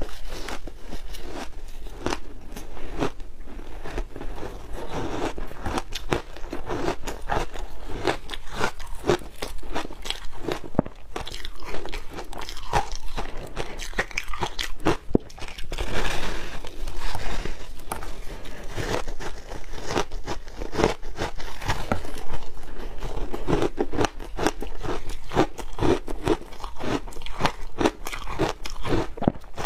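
Shaved ice made with matcha and milk powder being bitten and chewed: steady, dense crunching with many sharp crackles and snaps.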